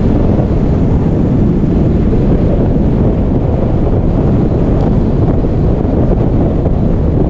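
Steady wind noise on a helmet-mounted camera's microphone from a motorcycle at road speed, a dense low rumble with the engine barely standing out beneath it.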